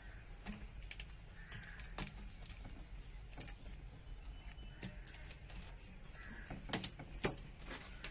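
Scattered light clicks, taps and clinks as a plastic water pipe is handled and pressed against a block wall, with two sharper knocks near the end.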